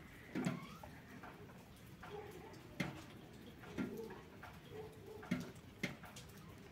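Meltwater from thawing snow dripping: about half a dozen single drops falling at irregular intervals.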